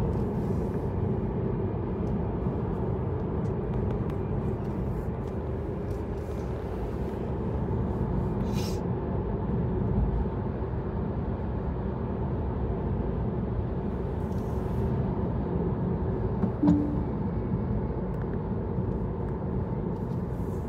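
Steady road and engine rumble of a car being driven, with a short beep about three quarters of the way through.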